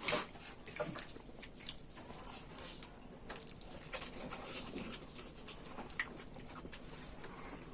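Close-up eating sounds from spicy instant noodles: scattered wet smacks, slurps and small clicks of chopsticks or spoon, irregular, with a louder burst at the start.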